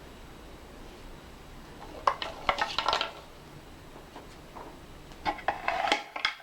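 Tarot cards being shuffled by hand: two short bursts of quick flicking clicks, about two seconds in and again about five seconds in.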